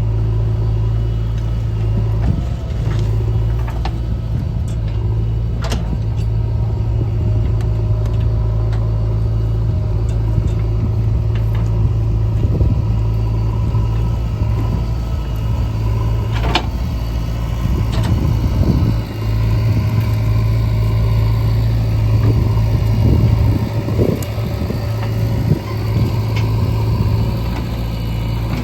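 Heavy diesel engine of a backhoe loader running steadily under work, with a few sharp knocks and rough scraping bursts as mud is dug and loaded.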